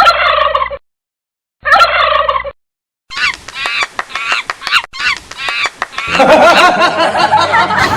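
Edited sound-effect clips: a short snippet played twice with a silent gap between, then a run of rapid warbling calls like gobbling fowl, turning into a denser, noisier jumble about six seconds in.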